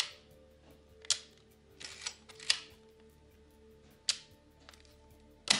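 Mamiya 7 medium-format rangefinder being worked by hand: five sharp mechanical clicks of its leaf shutter and controls, roughly one every second or so, with a short rasping wind of the film advance near the middle, over background music.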